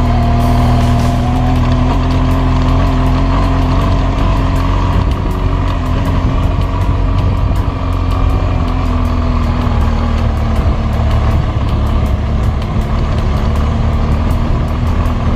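BMW R1200GS motorcycle's flat-twin engine running steadily under way, with a low rumble beneath it.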